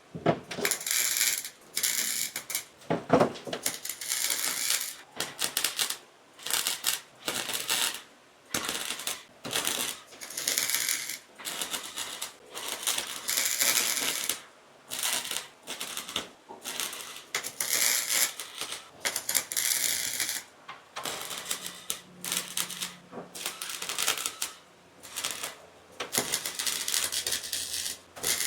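Welding arc crackling in repeated short bursts, about one every second or so, with brief pauses between them. This is stitch-welding a fresh sheet-metal patch into the rusted rear hatch.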